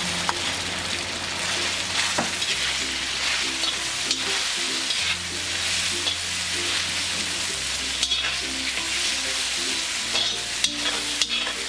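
Coated boneless chicken pieces sizzling steadily as they shallow-fry in hot oil in a wok, with a metal slotted spatula scraping and clacking against the pan a few times as they are stirred.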